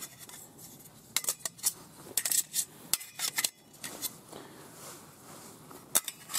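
Light metal clinks and scrapes of a stainless-steel wood gasifier camping stove's nested parts being handled. A run of clinks comes in the first half, then a pause, then one more clink near the end.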